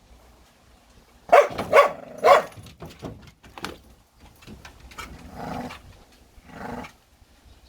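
Jindo dog barking three short, loud times, then giving two lower, longer growls.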